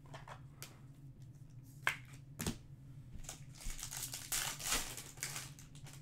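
A Topps Chrome Match Attax trading-card pack is opened by hand. A few sharp clicks come about two seconds in, then the wrapper crinkles steadily for a couple of seconds as it is torn and the cards are slid out.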